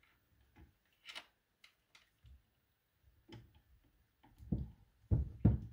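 Scattered small clicks and taps of hands handling stripped wires and small electronic parts, with a few duller knocks near the end.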